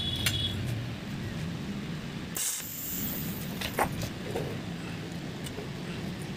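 Light clicks and taps as stainless steel frame pieces and a TIG welding torch are handled, over a steady low background hum. A brief hiss about two and a half seconds in.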